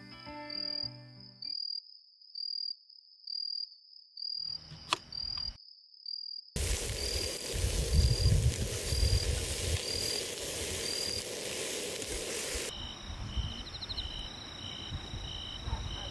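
Crickets chirping in a steady, regular pulse. For about six seconds in the middle, vegetables sizzle as they are stirred in a pot over a camp stove, with a few low knocks of the utensil against the pot.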